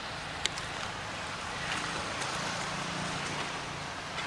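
Steady outdoor background hiss, with a single sharp click about half a second in and a faint low hum in the middle.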